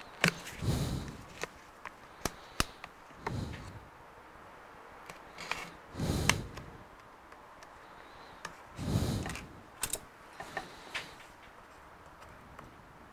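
Handling noise: light clicks and taps as a tablet and tools are moved about on a metal work plate, with four short whooshes about three seconds apart.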